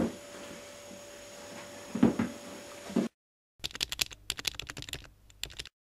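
Room tone with a steady hum and a few short knocks, the loudest about two seconds in. After a sudden dropout, a rapid, irregular run of clicks like typing lasts about two seconds and then stops abruptly.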